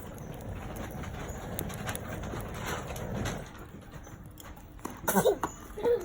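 Wood campfire crackling and popping, with scattered sharp clicks over a steady hiss. About five seconds in, a short louder cluster of pitched sounds rises over it.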